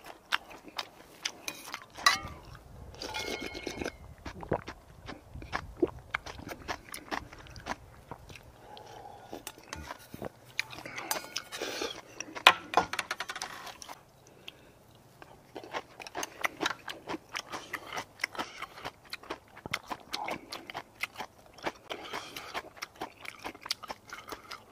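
Close-miked eating sounds: crisp crunches, chewing and mouth smacks, with a spoon scraping and tapping a stainless-steel bowl.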